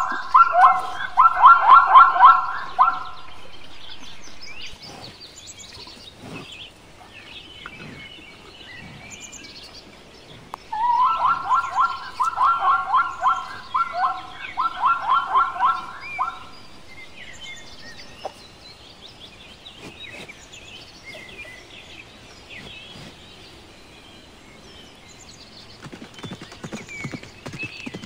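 Plains zebras barking: quick runs of repeated, pitched barks in the zebra's bray call, once until about three seconds in and again, in three bursts, from about eleven to sixteen seconds in. Faint bird chirps sound in between, and the hooves of galloping zebras come in near the end.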